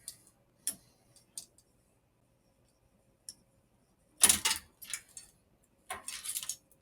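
Old bicycle chain clicking and rattling as it is pulled off the bike's gears: a few light clicks, then from about four seconds in several louder metallic jangling bursts as the links run loose.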